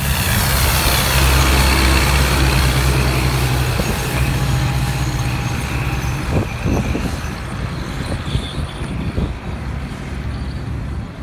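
Farm tractor with a track-sweeper attachment passing along the drag strip: a steady low engine drone under a broad rushing noise, loudest in the first few seconds and then slowly fading as it moves away.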